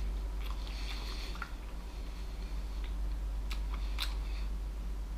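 A person eating: chewing, with a few sharp clicks of a spoon against a metal bowl near the end, over a steady low hum.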